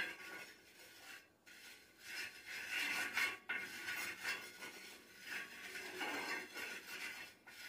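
Steel spoon scraping and rubbing across the iron tawa as oil is spread on it, in uneven strokes with a few light clicks of metal on metal.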